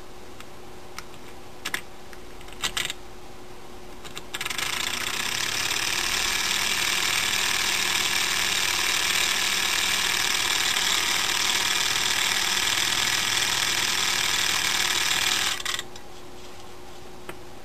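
Small handmade DC motor running off a 1.5 V AA battery with a fast, even rattling buzz. A few sharp clicks come in the first three seconds; the motor starts about four seconds in, runs steadily for about eleven seconds and stops abruptly.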